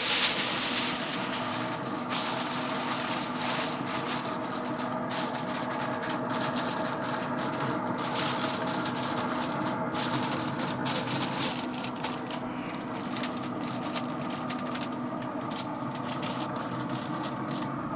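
Sheet of aluminium foil crinkling and crackling as hands press and crimp it over an aluminium foil pan, the crinkling thinning out in the last few seconds. A steady hum runs underneath.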